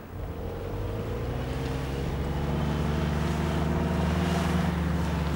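Engine of a Second World War Jeep, a four-cylinder, running steadily as the Jeep approaches and growing gradually louder.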